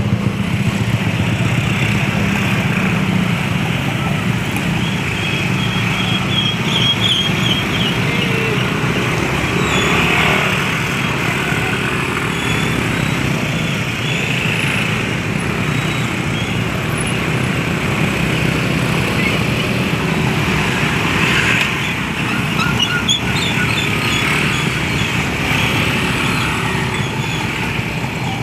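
Engine running steadily with a continuous low hum, unchanging in level.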